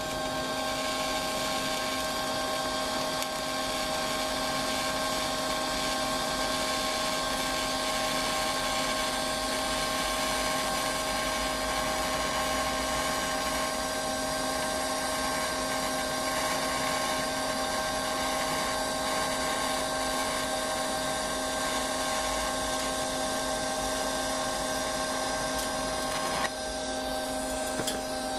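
TIG welding arc on mild steel at about 100 amps: a steady hiss over a constant hum. The hiss drops about two seconds before the end as the arc is broken, and the hum carries on.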